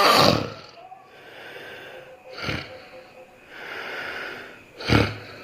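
A person snoring loudly and harshly: three loud, rasping snores about two and a half seconds apart, with a softer breath between the last two.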